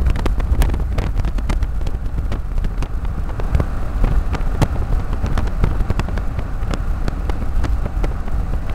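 Moving car heard from inside the cabin: a steady low road rumble with wind noise on the microphone and scattered sharp clicks and knocks.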